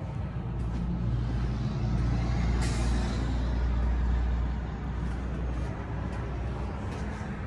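A motor running steadily with a low hum, and a short burst of hiss about two and a half seconds in.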